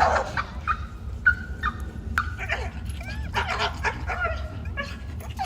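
Animal calls: a string of short, high-pitched whines and yelps, some rising or falling in pitch, several every second.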